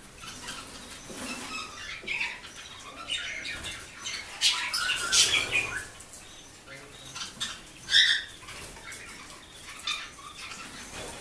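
Caged Senegal parrots giving scattered short squawks and chirps, with flapping and rustling as they jostle. There is a louder flurry about five seconds in and a single sharp call near eight seconds.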